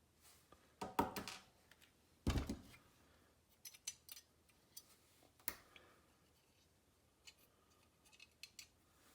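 Light clicks and clinks of small metal and plastic parts of a TOMY coin mech being handled and set down, a handful of separate knocks spread over several seconds.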